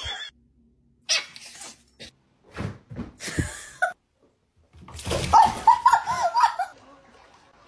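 Bathwater sloshing in short bursts, then a cat splashing into a filled bathtub about five seconds in. Over the splash comes a quick run of loud, short, high-pitched cries.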